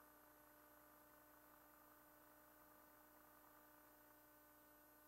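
Near silence: a faint, steady electrical hum and hiss on the line.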